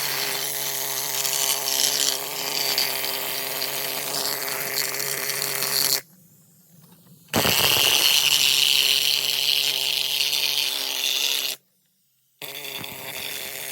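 Power tool running, in three stretches split by short cuts to silence: a steady pitched hum for about six seconds, then a louder, harsher stretch with a strong high hiss, then a shorter stretch near the end. It is cleaning rust off the fuel pump area parts.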